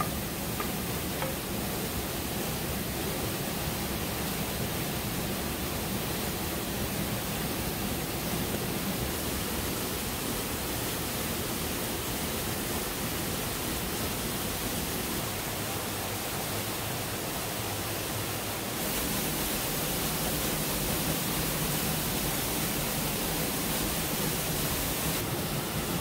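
Waterfall rushing: a steady, even roar of falling water, a little brighter and hissier for a few seconds about three-quarters of the way through.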